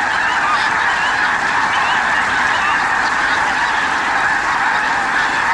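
A huge flock of snow geese calling all at once, a dense, steady din of overlapping honks, as the massed flock takes to the air in alarm.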